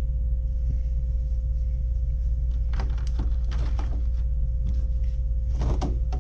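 Clear plastic packaging clicking and crinkling as it is handled, in a cluster of sharp clicks about three seconds in and again near the end, over a steady low hum with a faint constant tone.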